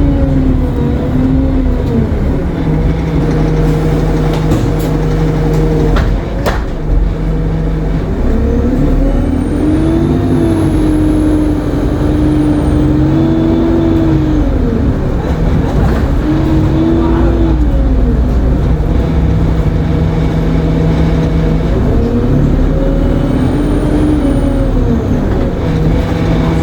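Alexander Dennis Enviro 200 MMC bus engine running under changing load, its pitch rising and falling several times as it pulls away, changes gear and eases off. A high turbocharger whine rises and falls twice with the revs, and there is a sharp knock about six seconds in.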